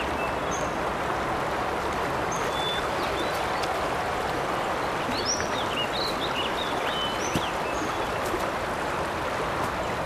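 A river's water rushing steadily, with a scattering of short high bird chirps, several of them around the middle.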